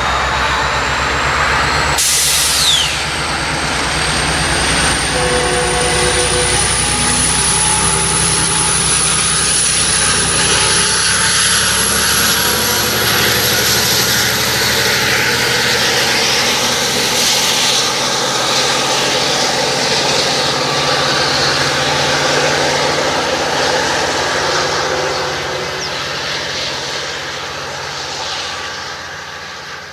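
EMD F59PH diesel-electric locomotive working hard as it pulls its train away, the engine running loud with a high whine that slowly rises in pitch. A brief loud burst comes about two seconds in, and the sound fades near the end as the train draws off.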